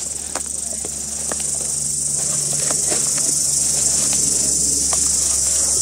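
A steady, high-pitched chorus of insects, with scattered crackles and snaps of footsteps moving through dry undergrowth.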